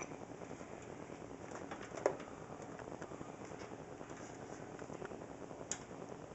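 Light clicks and scrapes of power-supply mounting screws being turned in by hand on the back of a steel computer case, with one sharper click about two seconds in and another near the end, over a steady hiss.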